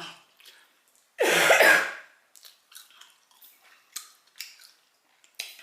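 A woman coughs once, loud and harsh, about a second in, choking on very spicy hot-sauce chicken; soft wet mouth clicks of chewing follow.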